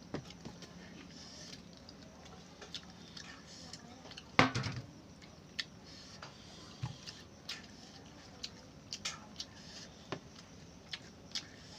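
Scattered light clicks and taps around a finished meal, with one louder knock about four seconds in.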